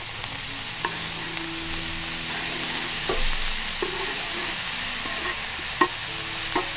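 Chopped portobello mushrooms sizzling steadily as they land in hot melted butter in a pan. A few light knocks and scrapes come as the pieces are pushed off a wooden cutting board.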